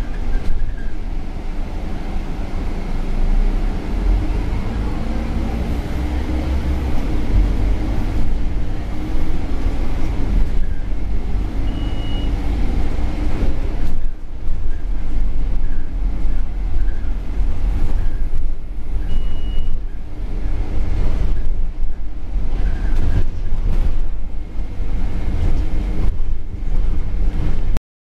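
Scania OmniCity N230UD double-decker bus heard from the upper deck while driving: its diesel engine and drivetrain rumble low, with the engine note rising a couple of times as it picks up speed, over body rattles and road noise. Two short high beeps sound about 12 and 19 seconds in, and the sound cuts off suddenly near the end.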